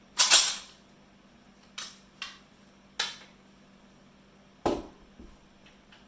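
About six separate metallic clicks and clacks as Ruger Mini 14 rifle parts are handled during disassembly for a trigger kit install. The first, just after the start, is the loudest.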